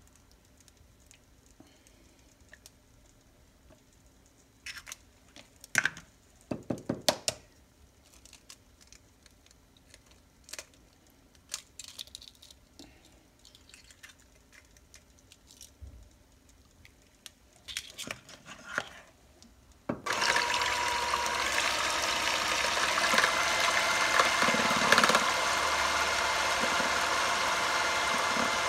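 Scattered clicks and taps of eggs being cracked and separated over a plastic bowl, with several close together about six to seven seconds in. About twenty seconds in, an electric hand mixer switches on and runs steadily, beating egg whites in the bowl.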